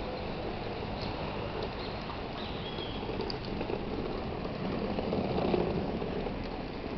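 Wind rushing over the microphone of a camera carried on a moving bicycle, a steady noisy rumble that swells briefly about five seconds in.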